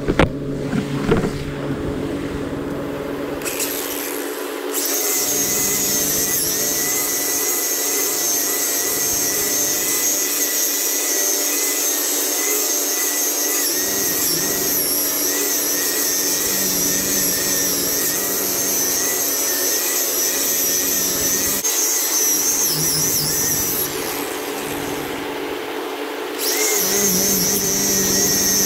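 Angle grinder with a sanding disc running steadily, sanding the boat's transom. Its whine gets louder about five seconds in and drops briefly near the end as the disc's contact with the surface changes.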